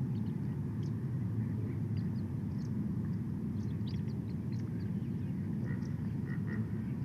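Birds chirping faintly with short high notes over a steady low rumble of outdoor noise, with a few short doubled calls in the second half.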